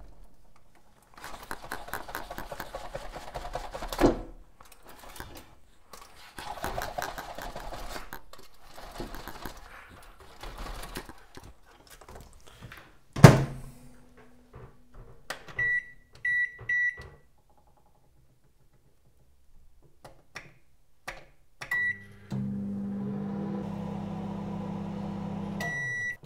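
Rustling as the ready-meal tray and its packaging are handled, then a microwave oven door shut with a loud thunk about halfway through, followed by three short keypad beeps. Near the end the microwave runs with a steady hum and finishes with a beep as its timer reaches zero.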